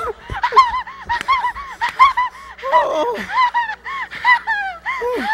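A woman's voice giving a long run of short, high-pitched, goose-like honking cries, about three a second. This is an exaggerated comic vocal outburst by an actress on stage.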